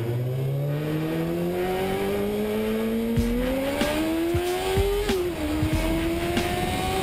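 Kawasaki ZX-7R's 750 cc inline-four engine accelerating hard, its pitch climbing steadily for about five seconds, dropping at an upshift, then climbing again and dropping at a second upshift near the end, over wind noise.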